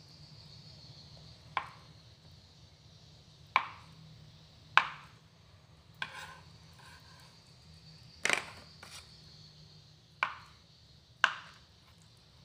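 A serrated kitchen knife cutting through blocks of tofu and knocking down onto a plastic cutting board: about eight sharp knocks, irregularly spaced a second or two apart.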